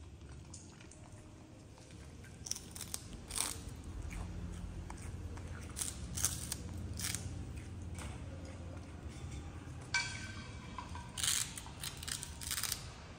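A baby monkey biting and chewing a crisp fried cracker, with a string of short, sharp crunches at irregular intervals.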